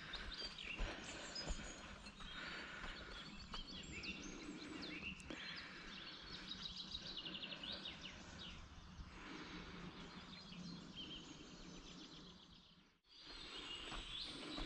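Several songbirds singing and calling, with short chirps and a quick run of repeated notes, over the faint steps of someone walking on a path. The sound cuts out briefly near the end and comes back.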